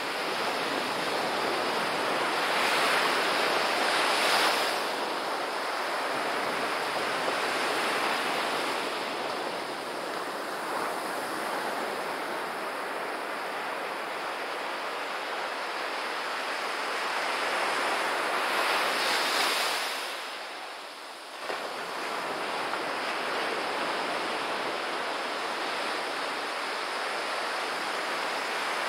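Surf on a sandy beach: small waves breaking and foamy wash running up the shore, a steady rush that swells louder twice, a few seconds in and about two-thirds through.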